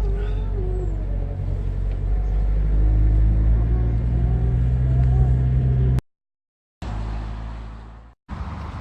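A motor running with a steady low drone that steps up slightly about three seconds in. The sound cuts out abruptly twice near the end.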